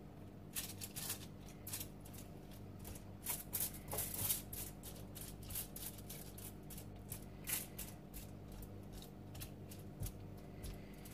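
A metal fork and spoon scraping and tapping on a foil-lined baking tray while spreading marinated chicken pieces, with the foil crinkling: irregular light clicks and scrapes over a faint steady hum.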